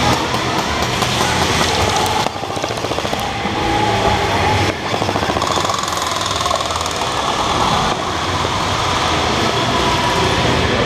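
Airsoft electric rifles firing in rapid full-auto bursts, two of them standing out about two and five seconds in, over a constant clatter of other guns echoing in a large warehouse hall.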